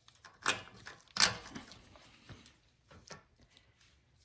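A few sharp knocks and clicks of parts and tools being handled during snowblower reassembly, the loudest two about half a second and a second and a quarter in, then fainter taps.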